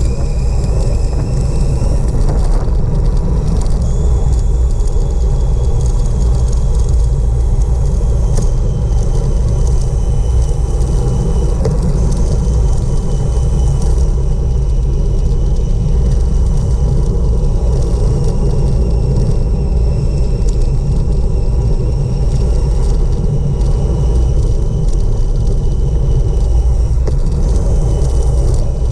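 Steady, loud wind rumble buffeting the microphone of a camera on a bicycle descending fast, mixed with tyre noise on the asphalt. A faint high whine drifts slowly up and down in pitch beneath it.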